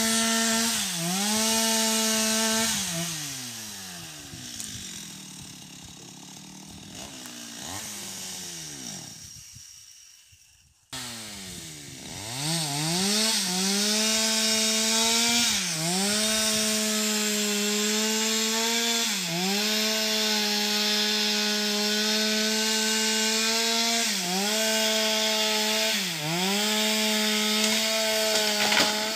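Stihl MS 250 two-stroke chainsaw running at full throttle on a felling cut through a sengon trunk, its pitch sagging briefly each time the chain bites under load. About three seconds in, the throttle is let off and the engine note winds down. After a sudden break near eleven seconds it revs back up and keeps cutting, sagging again every few seconds.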